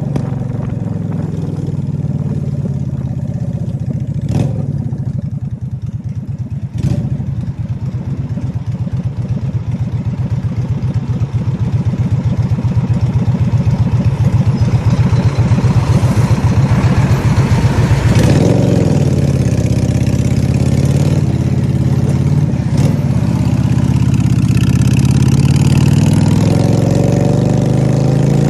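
Honda Shadow 600 V-twin motorcycle engine rumbling loudly, idling at first, then growing louder about halfway through and rising and falling in pitch with the throttle in the second half.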